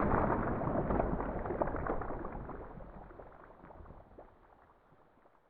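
Explosion-like rumble with scattered crackling pops, fading steadily and dying away to silence about four seconds in.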